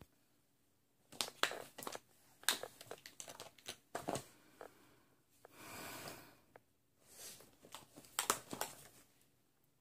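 Makeup items being rummaged through and handled by hand: a run of clicks, knocks and crinkling rustles, with a smoother rubbing rustle about six seconds in.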